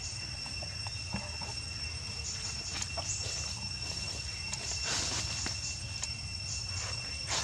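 Crickets chirring steadily, with repeated short high chirps, over a low steady hum. A few soft clicks are scattered through it, and there is a brief louder rustle about five seconds in.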